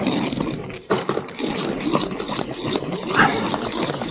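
Ice screw being cranked into hard ice by hand: a dense, fast crunching and rattling as the threads bite and chips break away, with the screw's crank clattering. A short squeak stands out about three seconds in.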